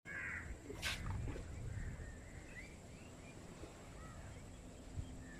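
Small birds chirping in short rising notes over a faint low rumble, with a sharp click about a second in and a dull thud near the end.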